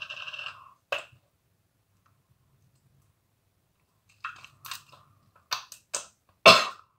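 Bright pink, slightly jiggly slime squelching and popping as fingers squeeze and poke it. There is a short squish at the start and a click about a second in, then a quiet stretch. From about four seconds in comes a run of sharp wet pops, the loudest near the end.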